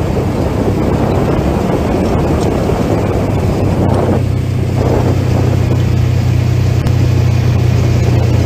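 Side-by-side UTV's engine running while driving down a gravel road, with road and wind rush on the onboard microphone. About four seconds in, the rushing noise eases and a steady low engine drone becomes the main sound.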